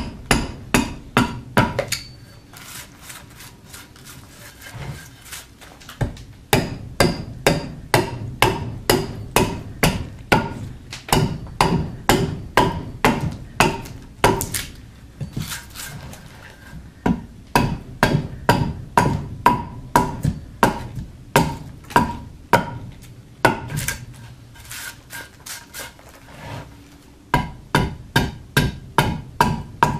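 Bowl adze chopping out the hollow of a green black walnut bowl blank: runs of sharp woody chops, about two or three a second, each with a short ring. The runs are broken by a few seconds of lighter, quieter cuts.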